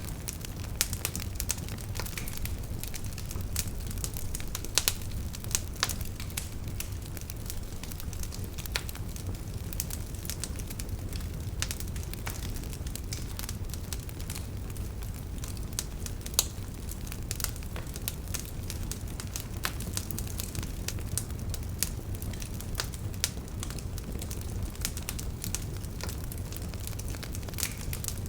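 Wood fire burning with a steady low rush and frequent irregular crackles and pops.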